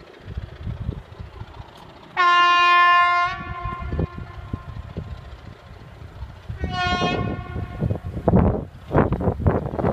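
Horn of Class 25 diesel locomotive D7628 sounding twice, a blast of about a second followed a few seconds later by a shorter one, over the low rumble of the distant locomotive climbing the grade. Near the end, gusty rumbling of wind on the microphone.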